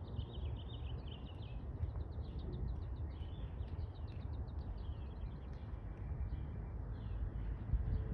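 Wild birds chirping and singing, many quick repeated chirps and short trills, over a steady low rumble.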